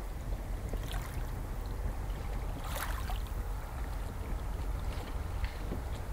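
Wind buffeting a phone microphone in an open field: a steady low rumble, with a few faint crackles.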